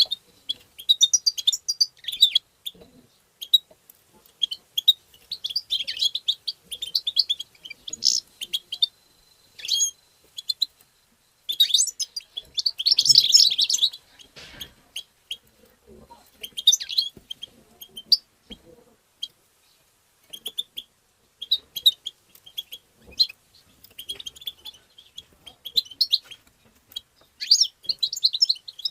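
European goldfinch twittering and singing: quick runs of short, high chirps and trills in bursts broken by brief pauses, with a denser, louder burst about halfway through.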